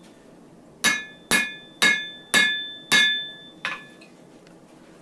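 Blacksmith's hammer striking a hot wire-rope Damascus blade on an anvil, drawing the edge thinner. Five ringing blows come about two a second, starting about a second in, followed by a lighter sixth.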